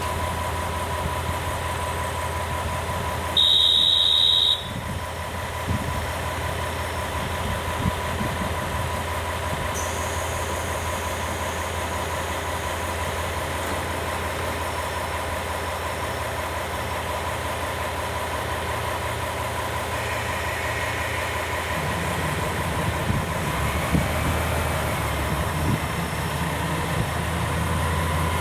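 A KiHa 40-series diesel railcar's engine idling at a standstill, a steady low hum, with its note growing fuller about three quarters of the way through. A loud high-pitched tone sounds for about a second a few seconds in.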